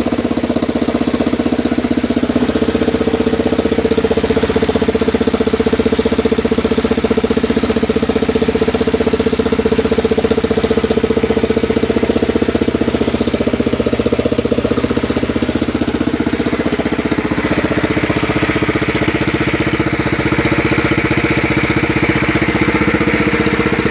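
John Deere lawn tractor's replacement 16 hp engine running steadily; its note shifts slightly about two seconds in and again around seventeen seconds in.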